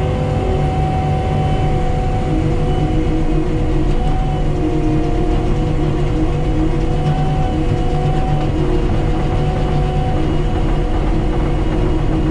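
Skid steer's engine running steadily at high throttle, driving a hydraulic stump grinder attachment, with a steady whine that wavers slightly in pitch over a low rumble.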